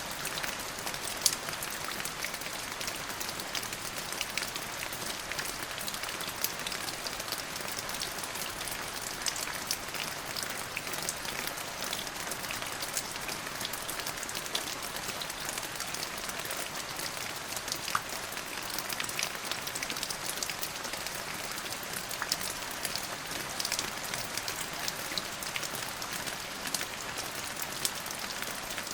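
Steady rain falling, an even hiss with many single drops ticking close by.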